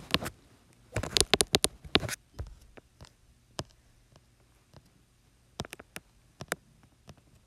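Fingertips tapping and swiping on a tablet's glass screen: a quick run of sharp taps about a second in, then scattered single taps.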